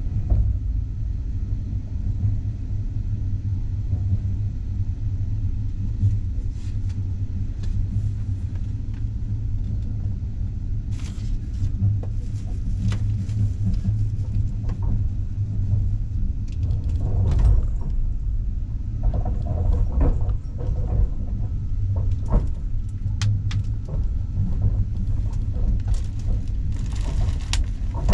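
Steady low rumble of a passenger train running along the track, heard from inside the carriage, with a scatter of sharp clicks and knocks from about six seconds in.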